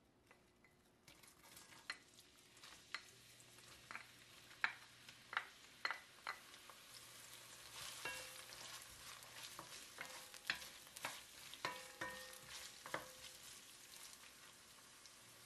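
Diced onion sizzling in hot olive oil in an enameled pot, the hiss building from about a second in. A wooden spoon stirs and scrapes through it, giving repeated sharp clicks and knocks against the pot.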